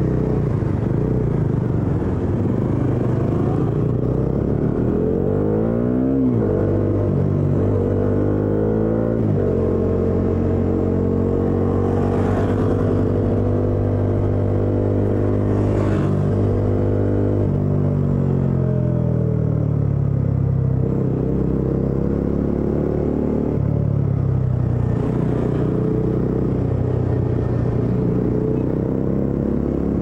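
Motorcycle engine running under way: it revs up about six seconds in, holds a steady higher pitch for roughly ten seconds, then drops back and runs on at a lower steady pitch.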